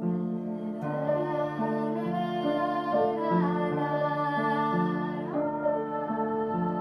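Piano playing a gentle repeating broken-chord pattern. About a second in, a held melody line joins it, sliding between notes, and fades out around five seconds in.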